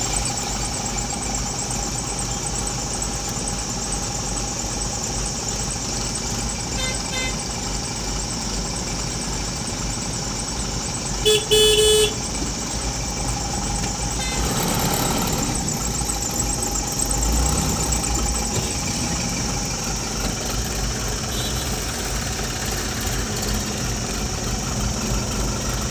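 Road traffic in a slow jam, with a vehicle engine idling steadily. A car horn honks loudly for about a second roughly eleven seconds in, with fainter short horn toots earlier and later.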